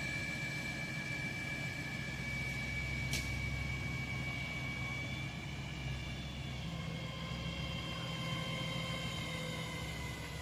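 A large engine running steadily, with a low drone and a thin high whine that slowly falls in pitch.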